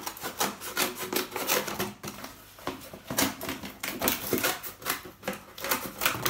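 A corrugated cardboard box being worked apart by hand, with quick, irregular scrapes, crackles and rubs of the cardboard.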